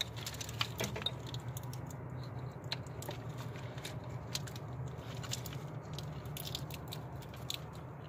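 Plastic wiring-harness connectors being handled and pushed onto the ignition-coil plugs of an LS engine, giving scattered small clicks and rustles over a steady low hum.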